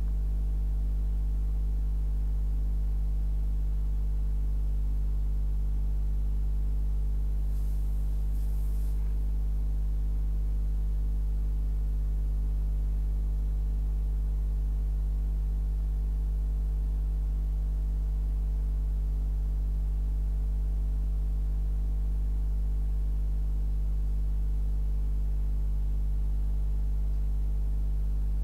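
Steady low hum made of several even tones, unchanging throughout, with two brief faint hisses around eight seconds in.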